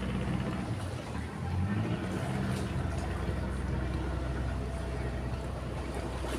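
A motor engine running with a steady low hum.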